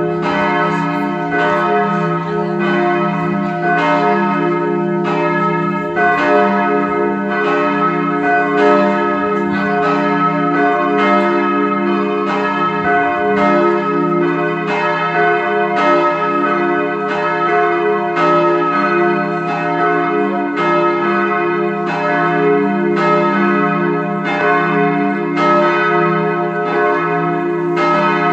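Steel church bells cast by the Bochumer Verein in 1921, swinging and ringing together. Strikes come about once a second over overlapping, sustained bell tones.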